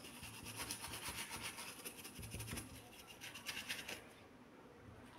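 A stiff brush scrubbing over a mobile phone's circuit board in quick back-and-forth strokes. There are two spells of scrubbing, the second starting about three seconds in, and it stops about a second before the end.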